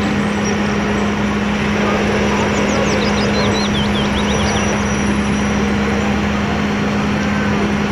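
Aerial ladder fire truck's engine running steadily to drive its pump, a constant low drone under a loud rushing noise while its ladder pipe sprays water. A few brief high chirps sound in the middle.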